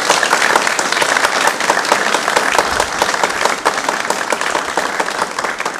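Small audience applauding with many hands clapping, the clapping thinning out near the end.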